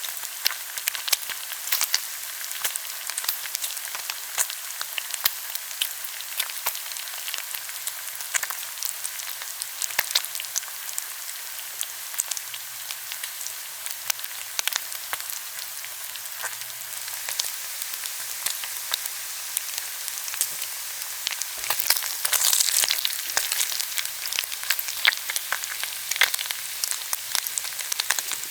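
Food frying in a frying pan: a steady high sizzle with a constant scatter of crackling spits and pops, swelling briefly louder about 22 seconds in.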